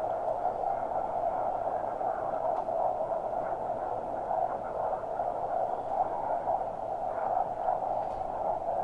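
Steady rushing wind and road noise from a moving vehicle, an even hiss with no change.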